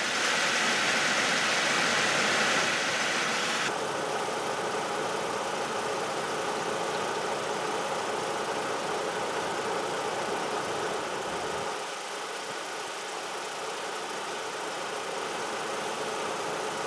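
1998 Chevrolet Cavalier's 2.4-litre twin-cam four-cylinder idling steadily, warming up after a thermostat replacement. A brighter hiss over the engine stops about four seconds in.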